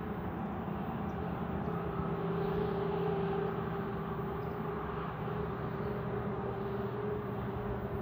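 Steady machine drone with a few held tones over background noise, swelling slightly about two to four seconds in.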